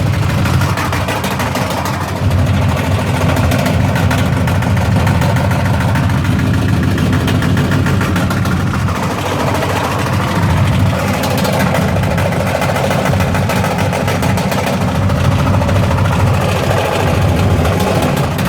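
Washing machine running with a loud, fast, continuous banging.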